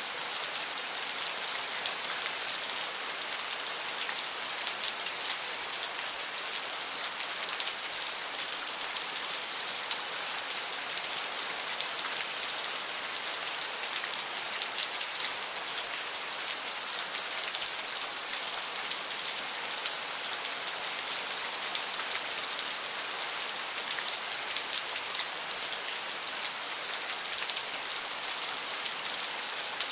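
Steady rain falling, an even, unbroken hiss of dense patter.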